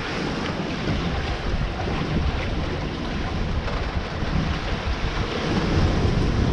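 Strong wind buffeting the microphone over the rushing of big waves along a sailboat's hull in rough seas: a steady, dense noise with a rumbling low end.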